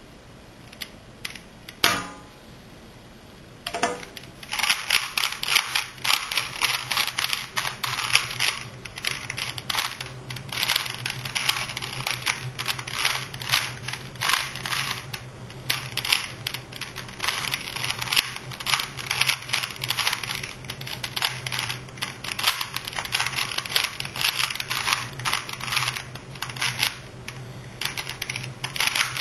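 A sharp knock about two seconds in, then from about four seconds on a dense, irregular clatter of clicks over a steady low hum.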